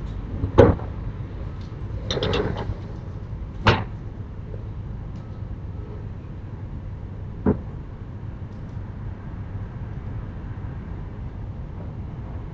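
A few sharp bangs and knocks, as from house doors or shutters: a loud bang about half a second in, a short rattling clatter around two seconds, another bang near four seconds and a fainter knock near seven and a half seconds, over a steady low background rumble.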